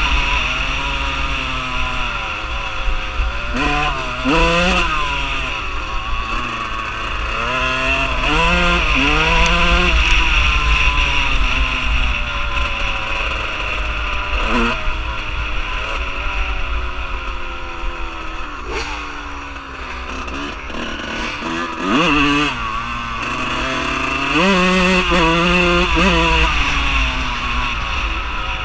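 Dirt bike engine being ridden along a farm track, repeatedly revving up and falling back as the rider works the throttle and shifts, with quick climbs in pitch a few times. A steady low rumble runs underneath.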